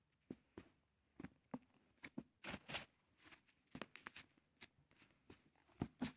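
Pages of a thick paper textbook being leafed through: a faint run of quick page flicks and rustles, with a longer rustle about two and a half seconds in.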